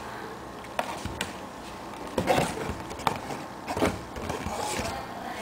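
Handling noises from unpacking a plastic digital alarm clock: a series of sharp clicks and knocks with rustling between them.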